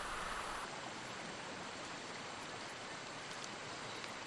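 Faint, steady hiss of water, with an abrupt change about two thirds of a second in where the deeper part of the sound drops away.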